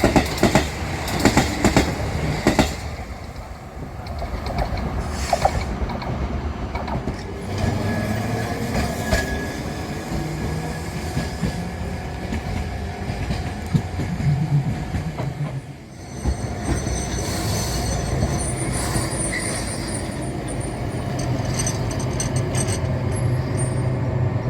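Kagoshima City streetcar running on rails: sharp clacks from the wheels over rail joints at first, then a pitched motor whine that shifts in tone. It settles into a steady hum near the end.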